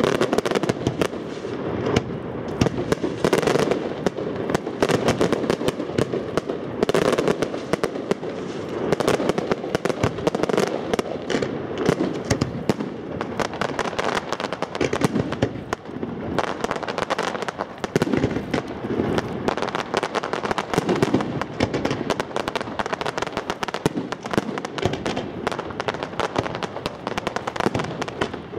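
Fireworks display: shells and batteries bursting in a dense, continuous run of bangs and crackling, with no pause.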